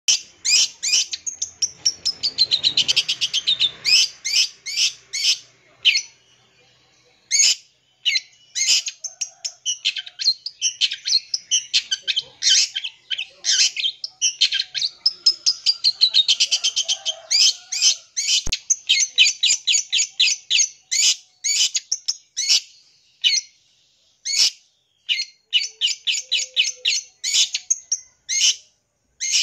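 Long-tailed shrike (cendet) singing a rapid, varied song crammed with mimicked calls of other birds: fast runs of sharp repeated chirps, twice broken by a long falling whistled sweep, with brief pauses.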